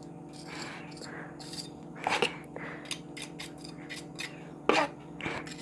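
Metal scraper spreading wall putty over plaster, with short scrapes and clinks; the sharpest come about two seconds in and again near the end, over a steady low hum.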